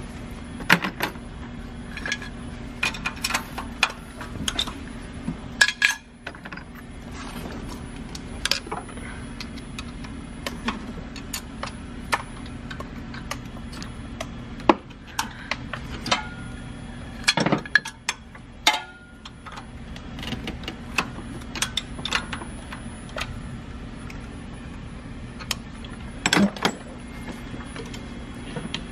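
Metal hand tools clicking and clinking on a Duramax diesel's valve train: a flat-blade screwdriver and a wrench working the rocker-arm adjusting screws and jam nuts while the valve lash is set. Scattered sharp clicks over a steady low hum.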